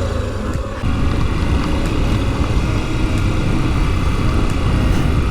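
Motorcycle engine running while riding on a dirt road, getting louder about a second in.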